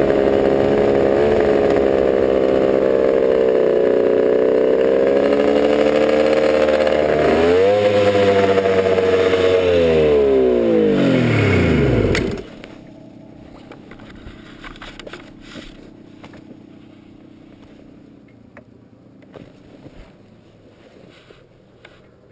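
Piped Polaris Ultra 680 triple-cylinder two-stroke snowmobile engine in a Scrambler quad, running at steady high revs. About seven seconds in the revs flare briefly, then fall away as the engine winds down and stops, with the drive belt blown. After that there are only faint ticks and clatter.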